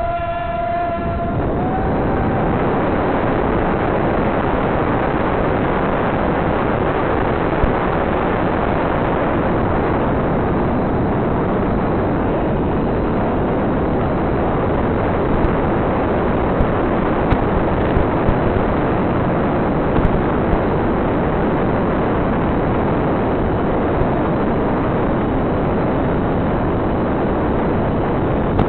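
Twin electric motors of an S800 RC plane spinning up under autolaunch, a whine that rises slightly in pitch over the first two seconds. It then gives way to a steady rush of propeller and wind noise on the plane's onboard microphone in flight.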